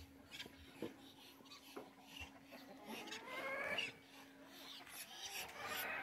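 Faint farmyard animal calls: one drawn-out call rising in pitch about three seconds in, and another near the end, over a faint steady hum.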